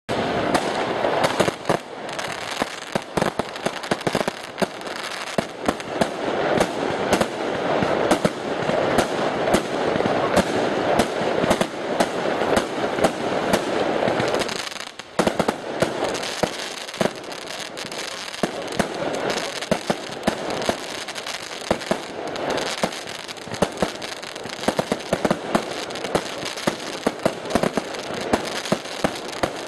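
Fireworks display: a dense, unbroken barrage of bangs and crackling firecrackers, with a brief lull about halfway through.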